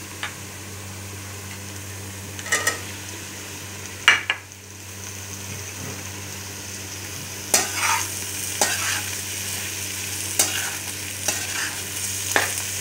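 Chopped vegetables sizzling in oil in a metal pan. About four seconds in there is a sharp clatter as sliced sausages go in; the sizzle dips briefly, then builds again. From about seven and a half seconds, a metal spatula scrapes and knocks against the pan as the mix is stirred.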